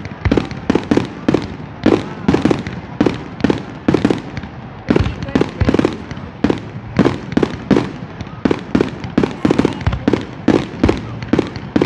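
Fireworks display: a rapid, continuous barrage of loud bangs, about three or four a second.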